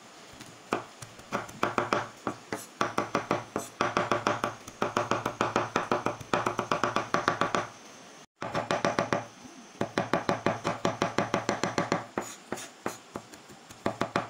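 Knife blade chopping garlic cloves on a bamboo cutting board: quick, even strokes, several a second, in runs broken by short pauses, the board knocking with each stroke.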